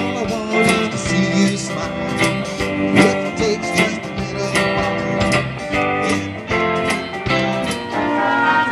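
Live band playing: electric and bass guitars over a drum kit's steady beat.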